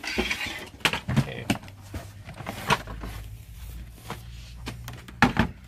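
Scattered knocks and clatter from handling a green plastic General Electric record player as it is lifted out of a cardboard box. Two of the knocks come close together near the end, and a low steady hum runs underneath.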